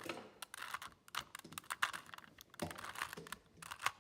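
3x3 Rubik's cube being turned by hand: a quick, irregular run of plastic clicks and clacks as its layers are rotated.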